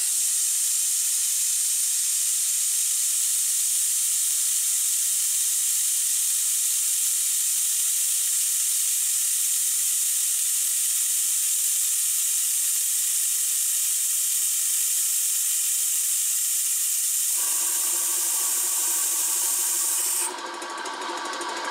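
Compressed air hissing steadily out of an air-compressor tank through an opened valve, bleeding the pressure down. About 17 seconds in, the compressor's electric motor and piston pump start running as the pressure switch cuts in at low tank pressure, and the hiss stops about three seconds later.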